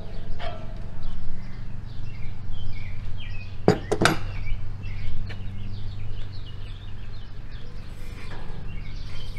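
Small birds chirping, over a steady low hum, with two sharp clicks close together about four seconds in.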